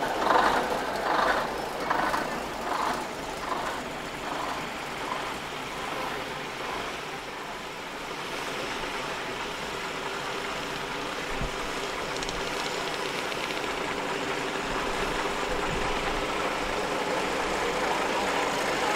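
Diesel engines of arriving lorries running. A regular pulsing, a little more than one a second, fades away over the first six seconds. Then a steadier engine sound slowly grows louder.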